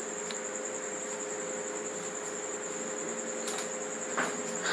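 Steady high-pitched whine with a fainter low hum over room hiss, and a couple of faint clicks near the end.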